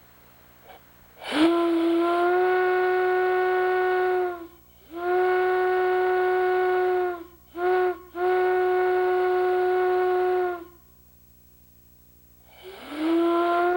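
A single-note steam whistle blown on compressed air, sounding one clear steady tone with a rushing hiss. It gives two long blasts, a short one and another long one, and a fifth blast starts near the end. Each blast slides briefly up in pitch as the valve opens.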